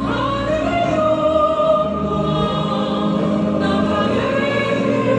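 Korean Christian worship song playing: sung vocals holding long notes over steady instrumental backing.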